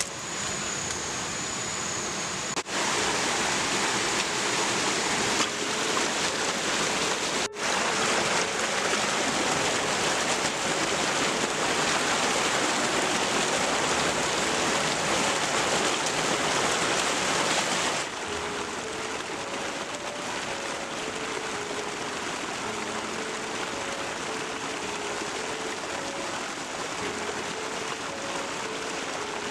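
Steady rushing of a stream or small waterfall, its level shifting abruptly a few times and dropping about two-thirds of the way through. Faint short tones step up and down beneath the water, and a thin high steady tone is heard in the first few seconds.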